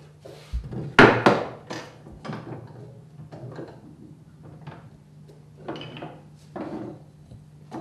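Pieces of timber and hand tools being knocked and set down on a wooden workbench and bench hook. Two loud wooden knocks come about a second in, followed by scattered lighter knocks as the workpiece is positioned.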